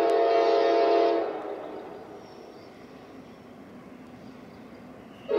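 Locomotive air horn blowing a long multi-note chord that cuts off about a second in and dies away, then starts again abruptly near the end: an approaching train sounding its horn for the grade crossing. A faint rumble carries on in the gap between blasts.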